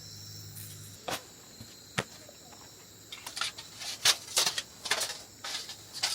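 Crickets chirping steadily. Two sharp clicks sound at about one and two seconds in, then a quick run of rustling and clattering handling noises fills the second half.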